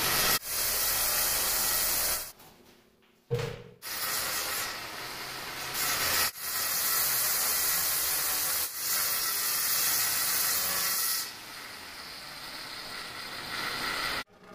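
Angle grinder with a cutting disc sawing through granite countertop: a loud, steady hiss of the disc in the stone. It breaks off briefly about three seconds in and is quieter near the end.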